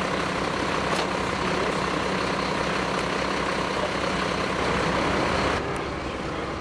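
Vehicle engines idling steadily in street traffic, a low steady hum. About five and a half seconds in the higher part of the sound drops away suddenly.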